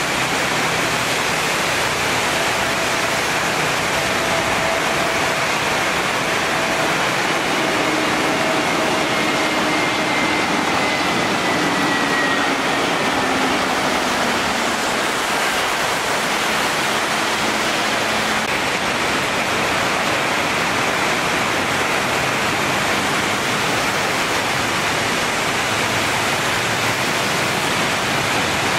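Heavy rain pouring down in a steady, dense hiss. Under it, an Airbus A320-family airliner's jet engines are faintly heard as a whine that slowly falls in pitch as the jet lands and passes, from about four to fifteen seconds in.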